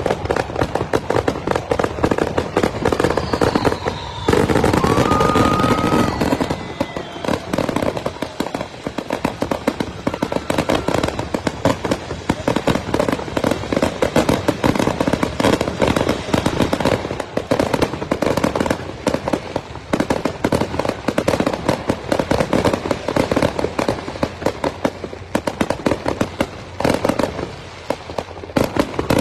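Fireworks display firing in a dense, continuous barrage of rapid bangs and crackles, with a short whistle from a shell about five seconds in.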